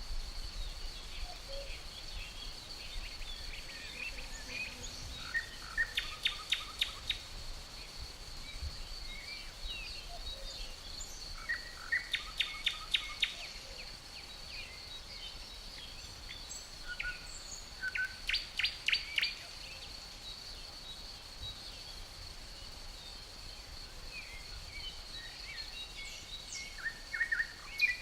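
Forest ambience: crickets keep up a steady high trill throughout while a songbird sings a short, fast series of sharp notes three times, roughly six seconds apart, among scattered chirps from other birds. A light breeze rumbles low underneath.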